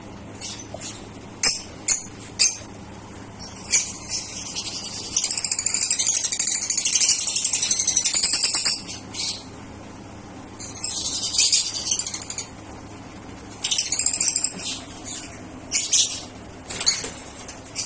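Lovebirds in an aviary chattering and squawking in shrill bursts. The chatter is densest for several seconds near the middle, with a few sharp clicks in the first few seconds.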